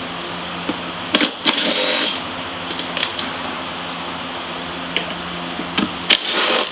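Metal clinks and two short scraping noises from tools and parts as a dirt bike's silencer is worked loose from the exhaust, over the steady hum of a ventilation fan.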